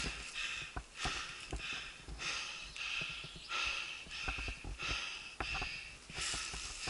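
Mountain bike ridden over a dirt and leaf-litter forest trail: tyres rolling over the ground with the bike clattering, sharp clicks and low knocks as it goes over bumps, and rhythmic swells of noise about once a second.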